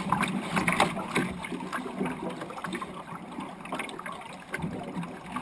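Water lapping and gurgling against the hull of a wooden sailing dinghy, with scattered knocks and rattles of gear inside the boat, most of them in the first second and a half.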